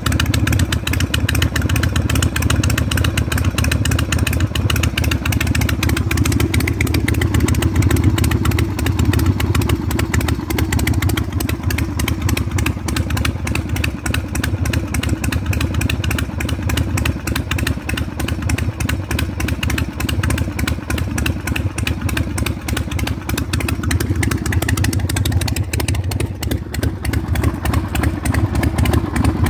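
Evo Sportster V-twin, an 883 bottom end with a 1275cc Hammer big-bore top end, idling steadily through open 1 3/4-inch drag pipes.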